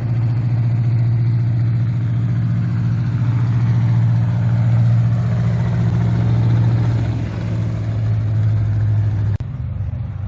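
A car engine running at a steady speed with a low, even drone. It cuts off abruptly near the end, giving way to a quieter engine sound.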